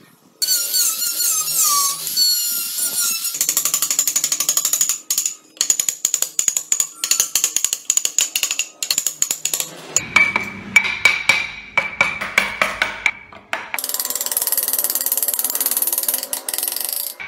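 Rapid, regular clicking of a tool working on wood, several strokes a second.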